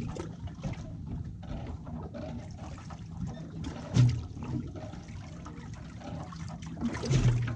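Water lapping and sloshing against a fishing boat's hull, with a sharp louder knock about four seconds in and another louder spell near the end.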